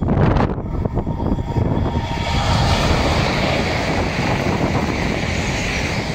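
High-speed train passing at speed: a rushing noise that builds from about two seconds in and holds as the train goes by, with wind buffeting the microphone.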